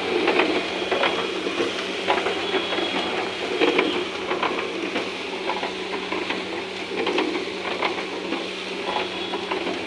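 Rice grains tumbling in and pouring out of a rotating metal drum roaster on a puffed-rice machine: a steady hissing rattle of grains with scattered crackles and clicks, over a steady low machine hum.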